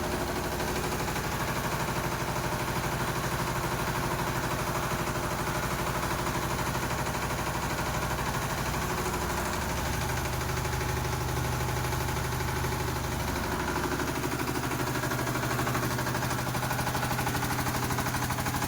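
Diesel generator engine running steadily with a continuous low, even hum.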